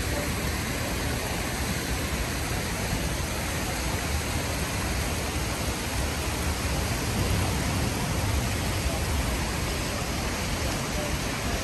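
Steady rain falling on a city street, an even hiss with a low rumble underneath.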